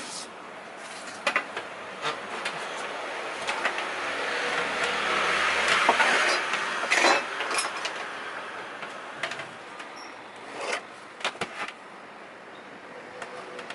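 Scattered knocks and clicks of hand work on wood, with a vehicle passing by, its noise swelling to a peak in the middle and fading again.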